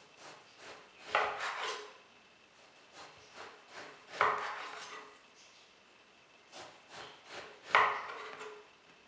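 Chef's knife slicing through a peeled round eggplant, the blade striking a terrazzo countertop. Three louder cuts about three seconds apart, each a sharp knock followed by a short scraping rasp, with softer sawing strokes between them.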